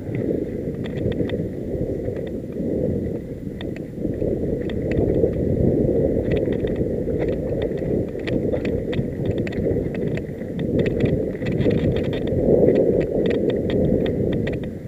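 Mountain bike ridden fast down a dirt singletrack strewn with dry leaves: a continuous low rumble of wind on the microphone and tyres on the ground, rising and falling, with frequent sharp clicks and rattles from the bike jolting over rough ground.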